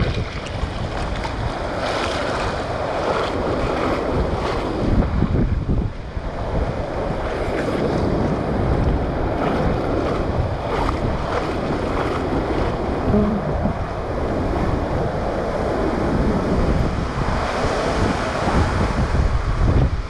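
Storm wind buffeting the microphone in a steady low rumble, over the sloshing and splashing of floodwater as someone wades through it.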